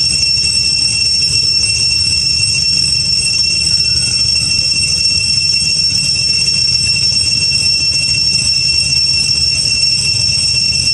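Steady, shrill, unbroken chorus of cicadas buzzing, with a low rumble underneath.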